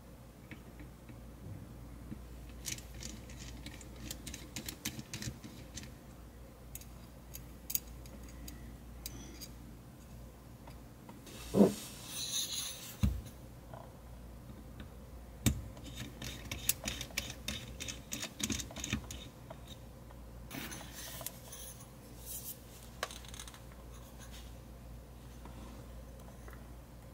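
Hands handling tube-microphone parts on a workbench: scattered small clicks, scrapes and rubbing. A sharp knock and a couple of dull thuds come a little before the middle, and the scraping grows busier later on.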